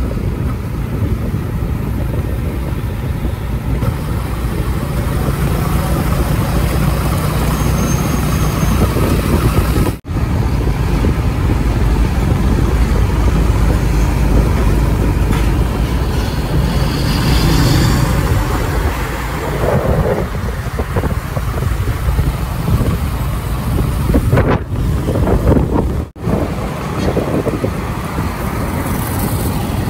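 Street traffic with heavy trucks' diesel engines running and passing, over steady tyre and road noise. The sound cuts out briefly about ten seconds in and twice near the end.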